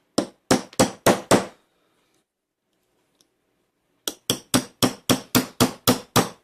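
Hammer striking to drive a pin out of a PacLock TL82A shipping-container lock during disassembly: a quick run of about six sharp metallic taps, a pause of a couple of seconds, then about ten more steady taps at roughly four a second.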